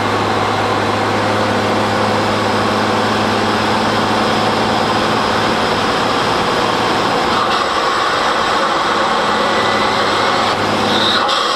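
Engine intake noise picked up by a microphone inside the airbox while driving: a steady, loud low hum with a rushing air sound over it, holding an even pitch.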